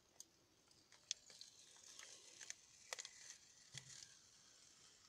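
Faint, scattered small clicks and a light scratchy rustle of a plastic figure base being slowly peeled off a cardboard insert.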